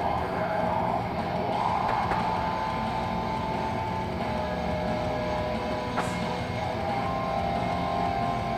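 Background music under a steady low hum, with one sharp knock about six seconds in.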